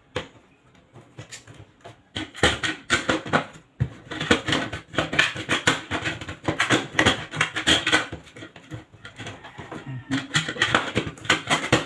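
Rapid, irregular clicking, rattling and scraping of hands-on wiring work: tools, wires and plastic parts being handled, in clusters from about two seconds in and again near the end.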